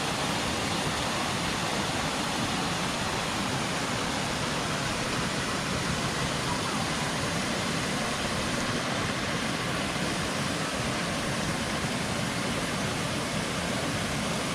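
Steady rush of the 38-metre Suuçtu waterfall: a dense, even hiss of falling water with no breaks.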